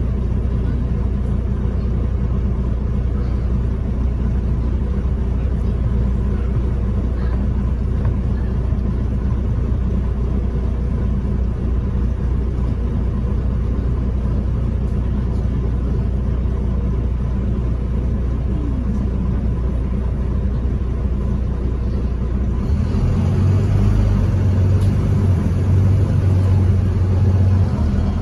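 Interior of a London bus on the move: the diesel engine's steady low drone with road noise. About 23 seconds in, the engine note rises in pitch and grows slightly louder, with more road and tyre hiss, as the bus picks up speed.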